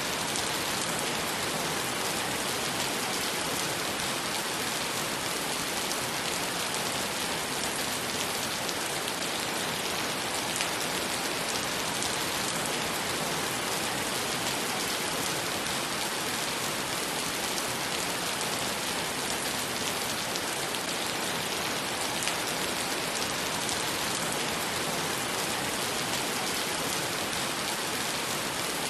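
Heavy rain falling steadily onto wet pavement and standing water, a dense, even hiss of countless drop splashes.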